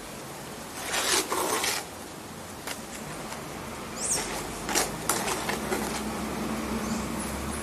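Metal trowel scraping and scooping gritty wet concrete mix with fine gravel from a bucket and packing it around a pipe base. There is a longer scrape about a second in, then several short, sharp scrapes.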